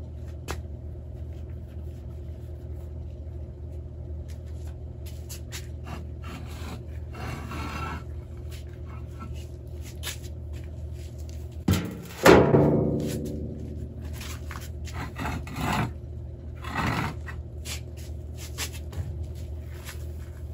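Pavers being handled and set down into an empty plastic wheelbarrow: scattered scrapes and knocks, with a loud hollow thud about twelve seconds in that leaves the tub ringing briefly, and two more knocks a few seconds later.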